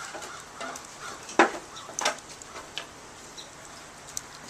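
Hard knocks and small clicks from wood and cookware being handled at a campfire: one sharp knock about a second and a half in, a second about half a second later, and light crackles and ticks around them.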